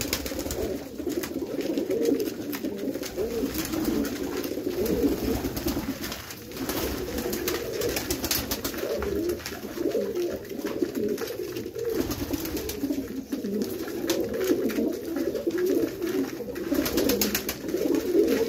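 Many domestic pigeons cooing at once, their low coos overlapping into a continuous chorus.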